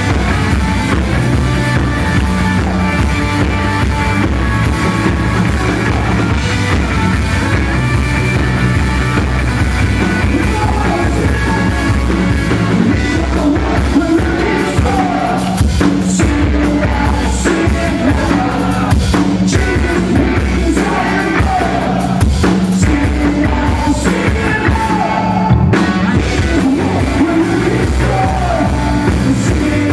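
Live rock band playing loud, with drums and electric guitar under a male singer singing into a handheld microphone.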